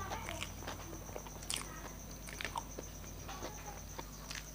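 Fingers squishing and mixing rice with mashed taro-leaf bharta on a plate, with small wet clicks and smacks, then mouth chewing and lip smacks as a handful is eaten near the end.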